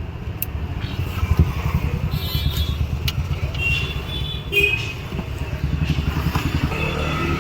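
A motor vehicle engine running steadily, with a couple of sharp light clicks.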